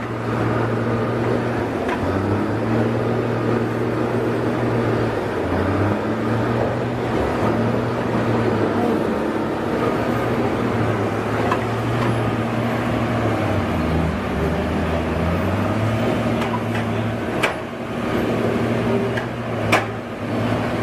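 A machine running steadily, its low hum shifting in pitch every few seconds, with a few sharp knocks near the end.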